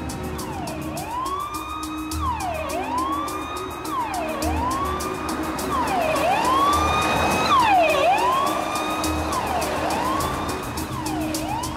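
Police sirens on a convoy of cars, wailing down and up about once a second, several overlapping and loudest around eight seconds in. A film score with held notes and a soft regular pulse runs underneath.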